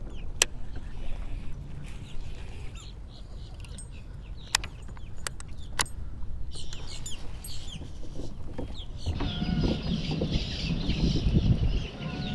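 Birds calling with short, repeated clucking notes over a low rumble of wind on the microphone. A few sharp clicks sound in the first half, and the rumble and the bird calls grow louder near the end.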